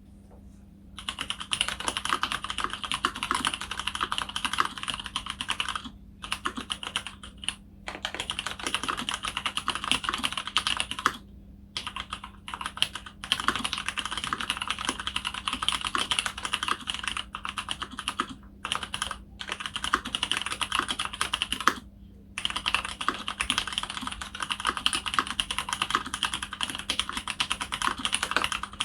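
Fast typing on a mechanical keyboard with lubed Cherry MX Clear tactile switches (Krytox 205g0) in an aluminium plate, with slow-curve 63.5 g springs and TX switch films. Keystrokes come in dense runs of several seconds with short pauses between them.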